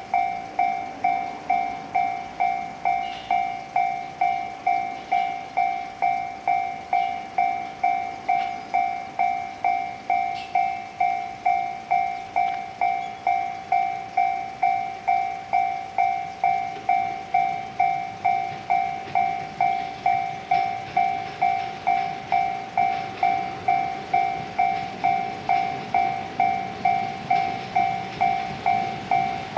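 Railway level-crossing warning bell ringing steadily, about two dings a second. An EF210 electric freight locomotive and its train approach under it, their running rumble growing in the second half.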